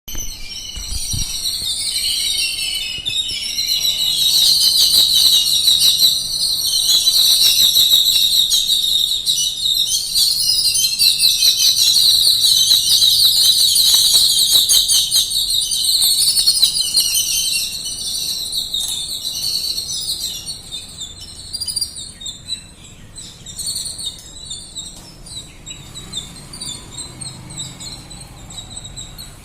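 A flock of house sparrows chirping together in a dense, continuous chorus that thins out to scattered chirps in the later part.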